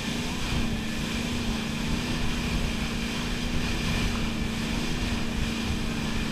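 Wake boat's inboard engine running at steady cruising speed, a constant drone, with wind buffeting the microphone and the rush of the churning wake.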